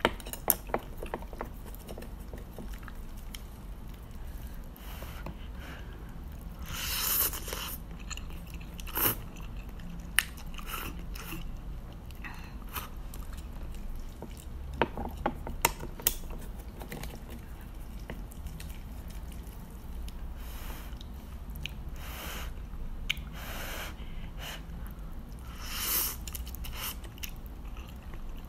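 Close-up eating sounds: chewing and slurping of instant noodles, with sharp clicks of chopsticks against the plate and two longer slurps about 7 and 26 seconds in.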